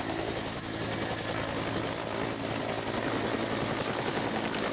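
Helicopter sound: steady rotor chop with a thin high whine above it, at an even level throughout.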